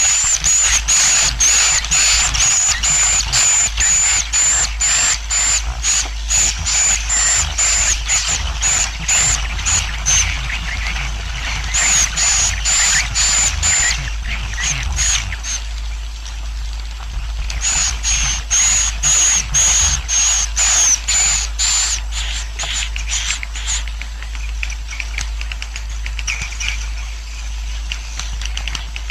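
Recorded roosting calls (suara inap) of a swiftlet colony, a lure call played to draw swiftlets in to roost: rapid high chirping twitters at about three a second, pausing briefly about ten and fourteen seconds in and thinning out after about twenty-four seconds, over a steady low hum.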